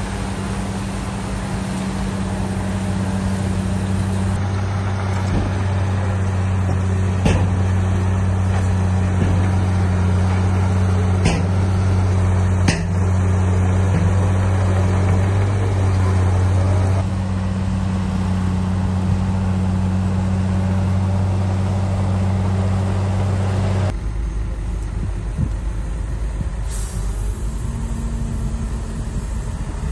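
Heavy diesel earthmoving machinery running steadily, with a few sharp metallic clanks. About three quarters of the way through, the steady engine drone drops away and a rougher, lower rumble is left.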